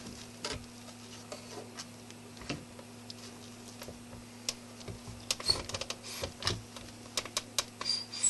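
Irregular light clicks and taps, as of small objects being handled and set in place, coming more often in the second half, over a steady low hum.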